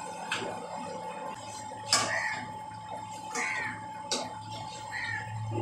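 A spatula stirring a thick chicken curry in a metal pan, with soft scrapes and a few sharp clicks against the pan.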